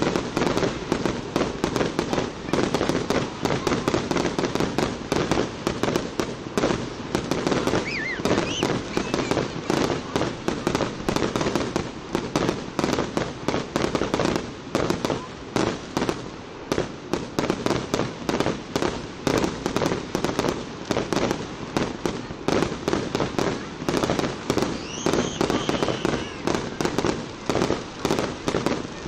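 Aerial fireworks going off in quick, continuous succession: a dense, unbroken string of pops and bangs, several a second.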